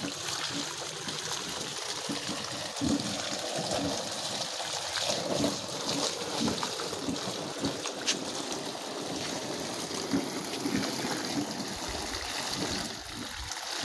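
Water from a hose pouring steadily into a shallow tarp-lined pond, splashing into the water already in it.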